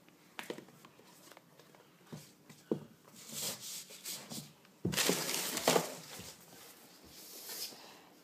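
Packaging being handled: hissy rustling with a few light knocks and clicks, in bursts that are loudest about five seconds in.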